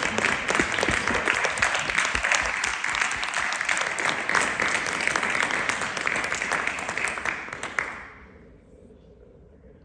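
Audience applauding, fading out about eight seconds in.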